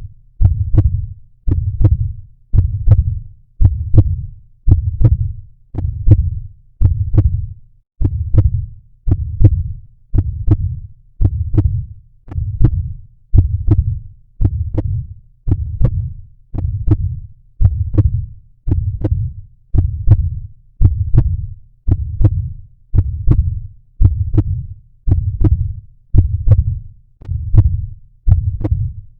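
Recorded human heartbeat beating at a steady pace of about one beat a second, each beat deep and low.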